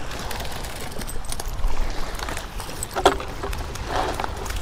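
Wind rumbling on the microphone, with a few short knocks and crunches; the sharpest comes about three seconds in.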